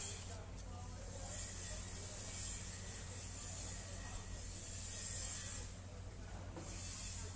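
Fish-market work-floor background: a steady low machine hum under a hiss that swells and fades about three times.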